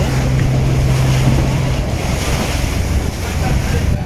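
Wind buffeting the microphone and rushing water on the deck of a moving motor boat at sea. A low steady hum drops away about halfway through.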